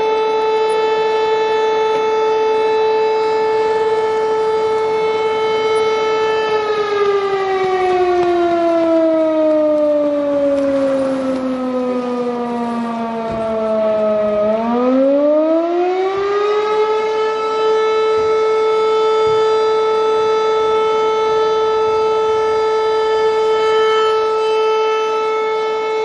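Fire house siren sounding a steady tone. About six seconds in its pitch slowly falls for some eight seconds, then quickly rises back to the full steady pitch, which it holds to the end.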